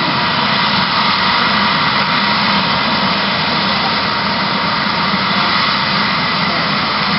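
Eurocopter EC130's single Turbomeca Arriel turboshaft and rotor running steadily on the ground: a loud, even turbine noise with a steady high whine over the rotor's rush.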